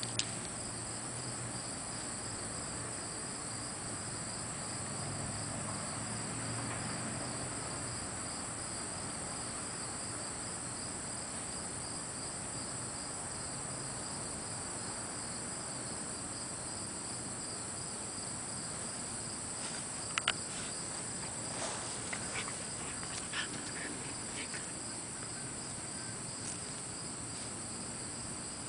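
Insects chirping in a steady chorus, an even rapid pulsing with a high continuous trill above it. A few sharp clicks and snaps stand out about two-thirds of the way through.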